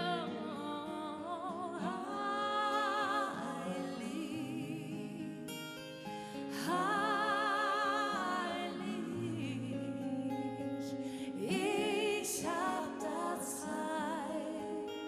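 A song: a singing voice with long held, wavering notes over instrumental accompaniment.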